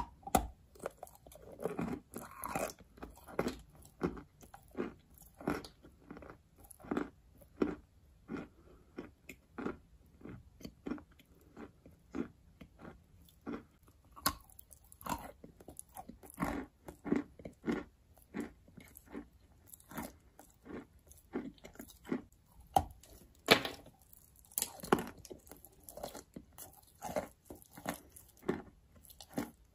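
A person biting into a block of white chalk and chewing it: dry, sharp crunches in an irregular run, about one or two a second, with the loudest bites now and then between quieter grinding chews.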